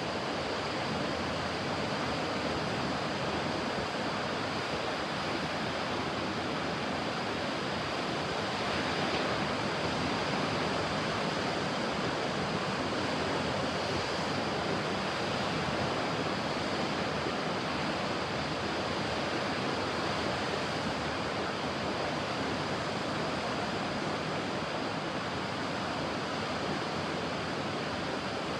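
Ocean surf: a steady wash of breaking waves, swelling slightly a few seconds in.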